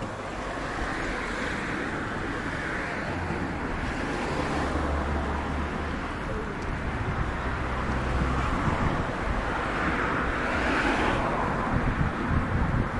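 Street traffic: cars passing along the road, the tyre and engine noise swelling and fading a few times, with wind rumbling on the microphone.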